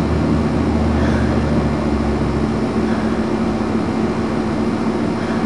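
Air conditioner running: a loud, steady rush of air with a constant hum. A low rumble under it fades out about two and a half seconds in.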